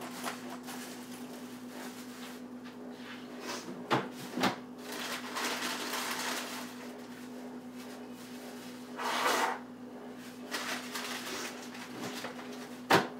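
Kitchen items being cleared off a counter and put away: a few sharp knocks and clicks, with spells of rustling and shuffling in between, over a steady low hum.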